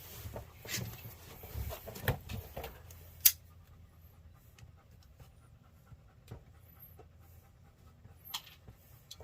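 A dog panting for the first few seconds, then a sharp click and a few faint taps and knocks.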